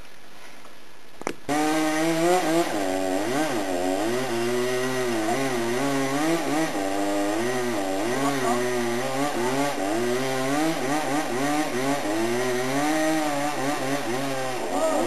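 Chainsaw cutting down a tree in sections. It comes in about a second in and runs with its engine pitch repeatedly rising and dipping as it works through the wood.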